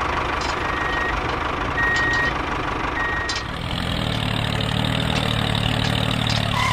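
Vehicle engine running with short reversing beeps about once a second. About three and a half seconds in it gives way to a steadier machine hum with a low drone.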